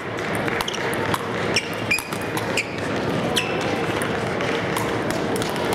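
Table tennis ball clicking sharply off sandpaper paddles and the table in a rally, a run of quick hits in the first few seconds, in a large hall.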